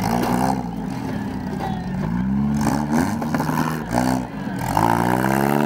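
Demolition derby car engines revving, their pitch rising and falling as the cars push and spin, with one engine climbing sharply about three-quarters of the way through and holding high.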